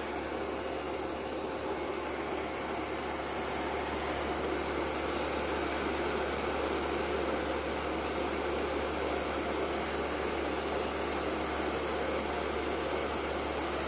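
Concrete mixer pump running steadily on a test run: a continuous mechanical drone that grows a little louder about four seconds in.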